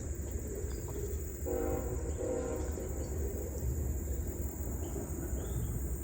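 A distant train horn sounds once, briefly, about one and a half seconds in. Under it is a steady high insect buzz and a low rumble.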